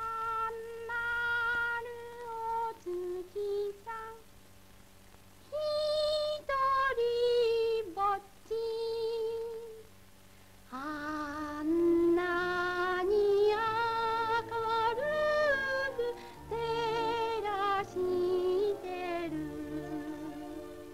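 Film soundtrack music: a slow melody of long held notes with vibrato, some of them sliding in pitch, sung or played by a high voice-like instrument, over a steady low hum from the old soundtrack.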